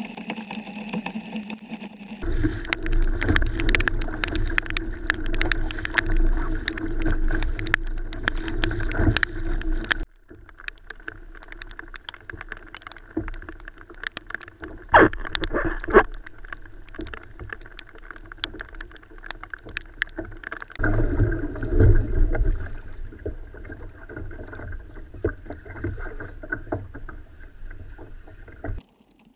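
Wind buffeting an action camera's microphone on a kayak in choppy water, with water sloshing against the hull and scattered ticks and knocks, two sharper knocks about halfway through. The sound shifts abruptly between louder rumbling stretches and quieter ones several times.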